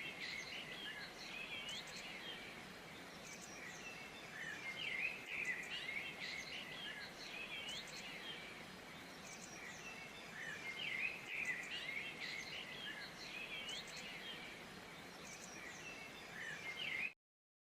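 Chorus of many birds chirping and calling, with short chirps and quick rising whistles overlapping throughout, over a faint steady hiss. It cuts off suddenly near the end.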